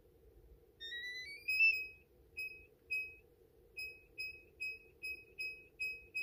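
Samsung SHS-1321 digital door lock's touch keypad: a short rising chime as the keypad wakes, then a string of short electronic beeps, about two a second, one for each digit as a passcode is keyed in.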